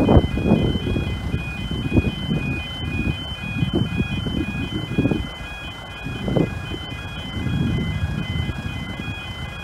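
Level crossing warning alarm sounding: two high tones alternating steadily, over an uneven low rumble.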